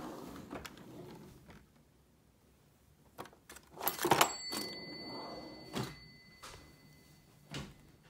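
Kitchen utensil drawer sliding open, then metal utensils clattering and clinking as they are rummaged through, loudest about four seconds in. A faint high ringing tone lingers for a few seconds after the clatter, with a few more single clinks.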